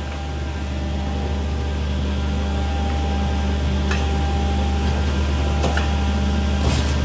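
Giben edgebanding machine running with a steady motor hum and a few steady whining tones, growing slightly louder. A few faint clicks come about four seconds in and later as a panel is fed into the machine.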